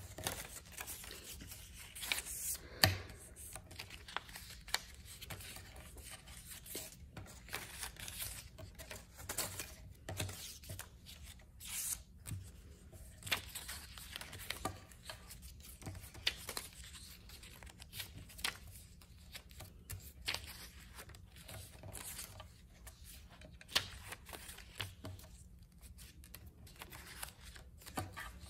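Construction paper strips being folded back and forth and creased flat against a wooden tabletop: irregular rustling and crinkling with light taps, and one sharper tap about three seconds in.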